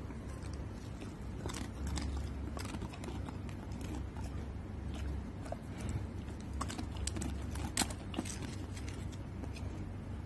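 A dog crunching and chewing a crisp snack chip taken from a person's fingers: irregular crisp crunches over a steady low hum.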